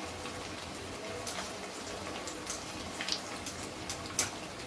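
Semolina-and-potato balls deep-frying in hot refined oil in an iron kadhai: a steady sizzle with scattered pops and crackles, and one sharper click near the end.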